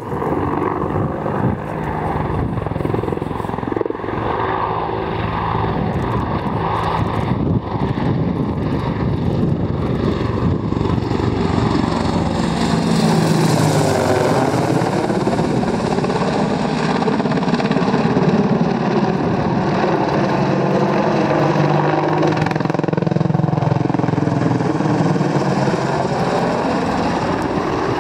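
AH-64 Apache attack helicopter in flight, its main rotor and twin turboshaft engines running steadily; the tone sweeps down and back up around the middle as it manoeuvres, and it is somewhat louder in the second half.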